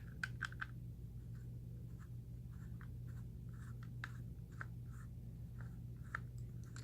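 Faint small clicks and scratches of a Torx T6 screwdriver turning the back-cover screws of a Nuance PowerMic II handheld microphone, loosening them, over a steady low hum.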